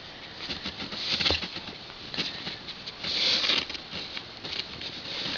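Soft rustling and light scratchy clicks of newborn puppies squirming on their bedding as they are handled, with a longer hissy rustle about three seconds in.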